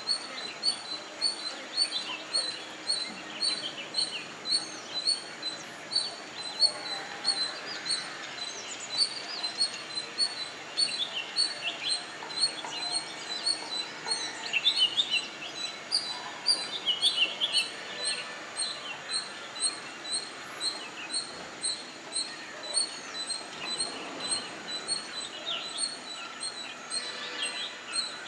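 Wild birds calling: a rapid, even series of short high chirps, about two or three a second, with other birds' irregular chirps over it now and then.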